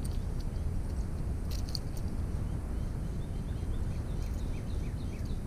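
Steady low wind rumble on the microphone. A bird sings a quick run of short chirps in the second half, and there are a couple of sharp clicks a little after a second in.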